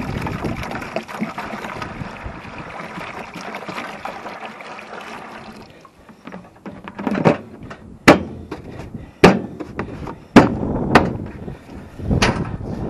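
Maple sap pouring from a plastic gallon jug into a bucket. About halfway through, the pouring gives way to about six sharp knocks and thumps a second or so apart.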